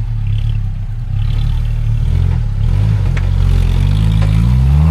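Suzuki 4x4's engine working under load off-road, its revs rising steadily over the last couple of seconds.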